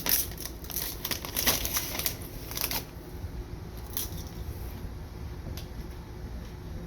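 Plastic chip bag crinkling loudly as it is handled and opened, for about the first three seconds, followed by a couple of faint clicks.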